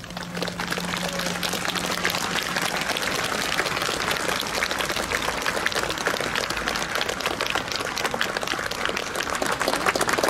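A large crowd applauding: many hands clapping steadily in a dense, even patter that rises slightly near the end.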